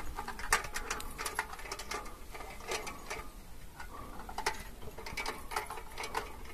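Irregular sharp clicks and knocks, often several a second, from a climber scrambling up bare rock.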